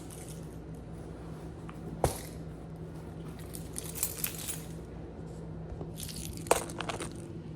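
Handling noises: a sharp click about two seconds in, then scattered rustling and light clattering over a steady low hum.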